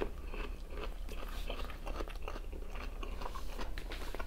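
A person chewing food close to the microphone: a run of small wet clicks and crunches from the mouth.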